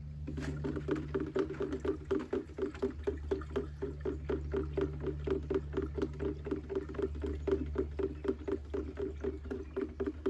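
Pond water mixed with fish emulsion and Epsom salt being stirred in a container: quick, even sloshing strokes, several a second, over a steady low hum.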